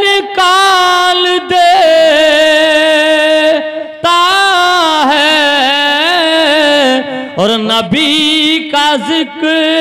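A man singing a naat solo, drawing out long wordless notes that bend and waver in melismatic runs, with a few short breaks for breath.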